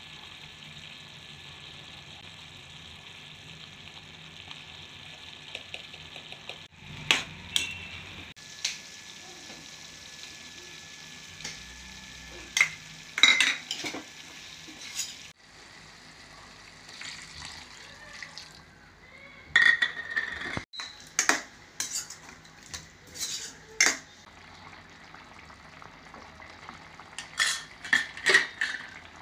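A chicken curry sizzling in a pot while a spoon stirs it, the spoon repeatedly knocking and scraping against the pot in sharp clicks over a steady frying hiss.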